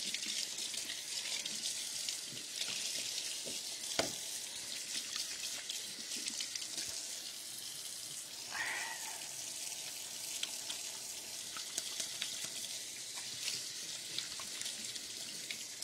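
Kitchen tap running and splashing into a stainless steel sink, rinsing grated-potato scraps toward the drain. There is a single sharp knock about four seconds in.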